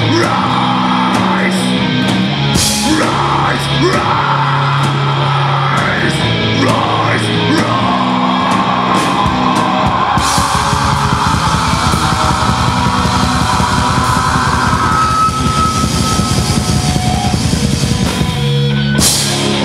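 Live rock band playing: electric guitars, bass and drum kit, with a singer's vocals over them.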